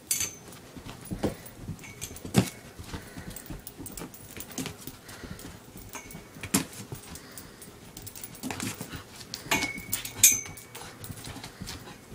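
A small dog scrabbling in circles around a stool while chasing its leash: irregular clicks and knocks of its paws and the leash against the floor and stool legs, the loudest knock about ten seconds in.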